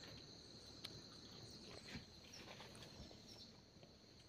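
Near silence with a faint, steady, high insect drone, like crickets, and a couple of soft ticks.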